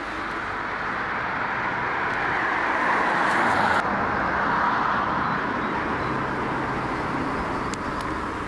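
Road traffic: a steady rush of tyre and engine noise from passing cars. It swells to its loudest about three to four seconds in, then slowly eases off.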